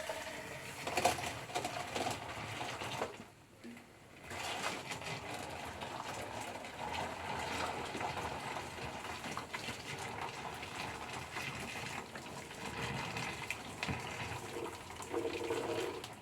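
Boiling water being poured into a washing machine, a steady gushing splash that breaks off briefly about three and a half seconds in, then runs on.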